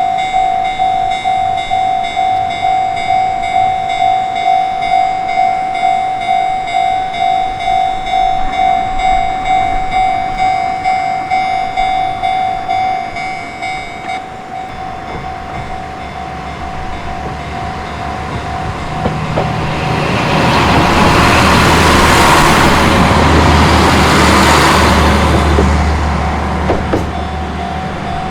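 Japanese level-crossing warning bell ringing in a steady pulsing ding-ding, about two strikes a second, its sound thinning about halfway through. A train then approaches and passes over the crossing with a building rumble, loudest in the last third.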